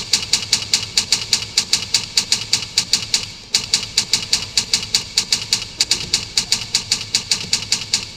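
Rapid, even clicking, about five clicks a second, with a brief break about three and a half seconds in.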